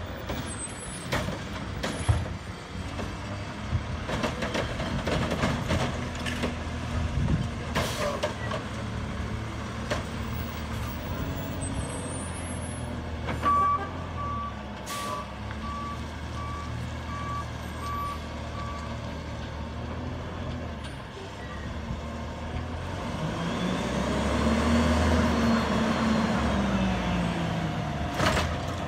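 CNG Autocar McNeilus front-loader garbage truck running as it turns around, with a few sharp knocks. Its reverse alarm beeps steadily for about five seconds midway. Near the end the engine revs up and back down as the truck pulls forward.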